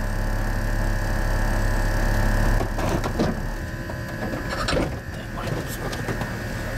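Off-road vehicle's engine idling, heard from inside the cab as a steady low hum, with a few light rattles.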